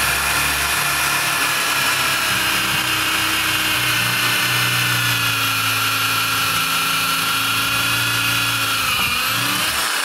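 A 450 W electric drill with an 8 mm bit boring through a wooden beam, its motor running at a steady whine. It runs held down in speed because the power station's X-Boost mode throttles the drill to the station's 300 W maximum. The pitch dips slightly near the end.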